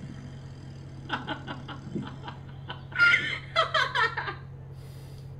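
A man's stifled laughter: a run of short snickers, then a louder burst of laughing about three seconds in.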